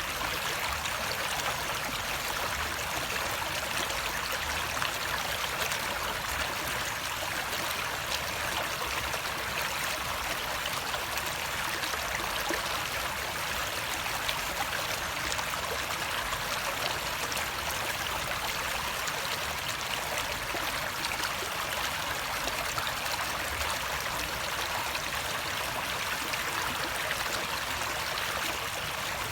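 Flowing water of a stream, a steady even rush with no separate splashes or drops standing out.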